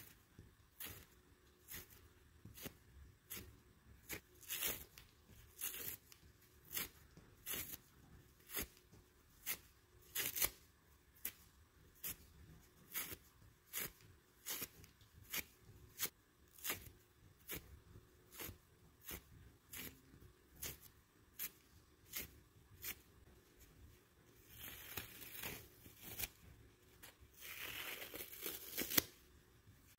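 A pink sponge being torn apart by hand: a quick run of short rips, about one and a half a second, then two longer, drawn-out tears near the end.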